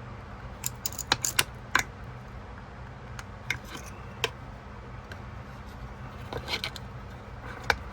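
Irregular sharp clicks and light scrapes of a metal tool working against an old folding knife's handle scale as it is pried loose, coming in small clusters with pauses between.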